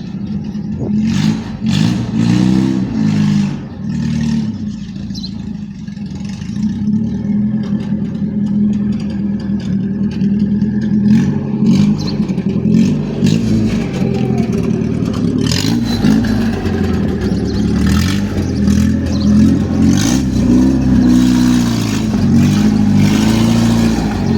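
Ford Verona's AP 1.8 four-cylinder engine rumbling through a straight-through exhaust with no muffler: it idles and is blipped up and down in short revs a few times, with more frequent revving toward the end.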